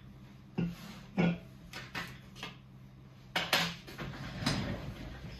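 A drink can and a plate set down on a wooden table with several light knocks, then a chair being pulled out and sat in, a scraping, rustling stretch about four seconds in. A steady low hum runs underneath.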